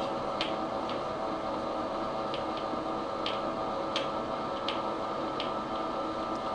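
Steady machine hum with faint, irregular clicks, about one or two a second.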